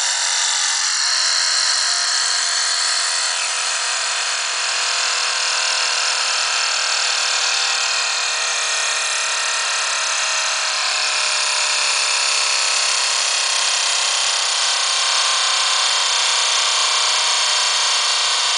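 Tornado Spheres, two steel ball bearings welded together, spinning at very high speed on a glass makeup mirror. They make a steady, high, many-toned whirring whine that slowly falls in pitch as the spin winds down.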